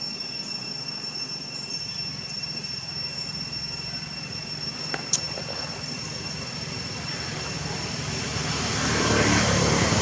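A low engine drone, growing louder over the last few seconds as a motor vehicle or aircraft comes nearer. Under it runs a steady high, thin whine. A single sharp click comes about five seconds in.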